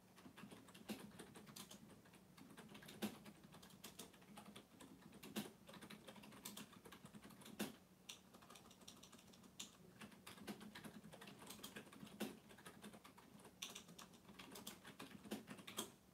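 Faint typing on a keyboard: irregular key clicks, several a second, with sharper clicks every couple of seconds, over a low steady hum.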